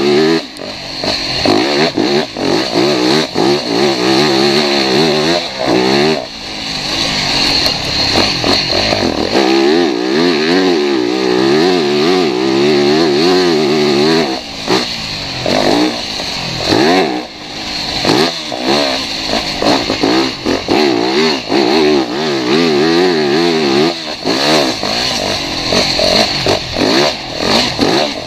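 Motocross dirt bike engine ridden hard, its pitch rising and falling over and over as the throttle is opened and shut, with several brief drops where the throttle closes.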